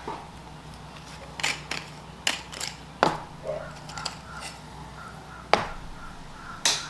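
Handling noise: about nine separate sharp clicks and knocks, irregularly spaced, over a low steady hum.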